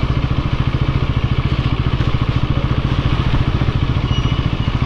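Motorcycle engine running steadily while riding, with an even, rapid firing beat.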